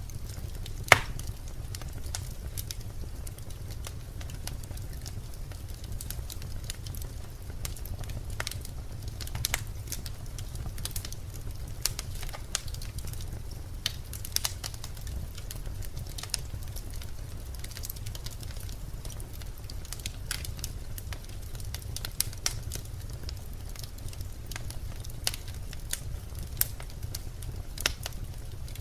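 Birch logs burning in a fireplace, crackling with scattered sharp pops over a steady low rumble of the fire, with one loud pop about a second in.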